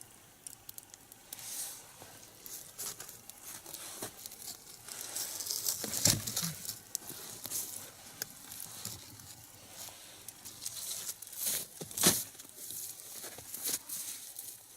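Crackling and light hissing from a single-log nodya campfire, with many irregular sharp pops. Two louder knocks come about six and twelve seconds in.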